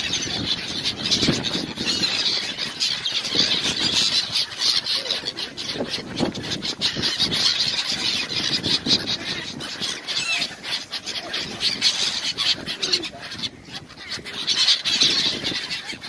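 A large flock of gulls calling, with many short, high-pitched calls overlapping without a break. The calls thin out briefly about three-quarters of the way through.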